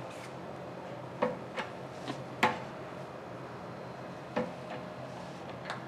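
Hand-pumped hydraulic shop press working a large bronze bushing out of its bearing carrier: about half a dozen sharp metallic clicks and ticks at irregular intervals, one about two and a half seconds in the loudest, over a faint steady hum.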